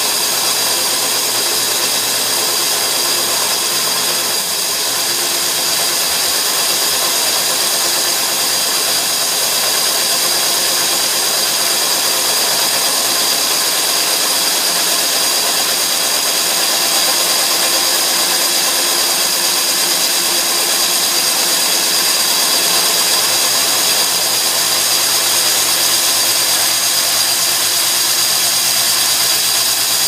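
Hilti DD 350 diamond core drill running steadily, its 122 mm wet core bit cutting into reinforced concrete, with the water vacuum extracting the cooling water at the collection ring. The sound is slightly louder from about halfway through.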